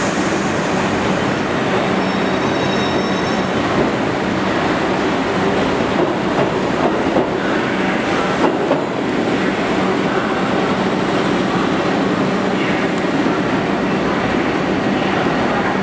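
Bombardier R62A subway train running out of the station: a steady rumble and hiss of steel wheels on rail, with a few sharp clacks over rail joints about six to nine seconds in.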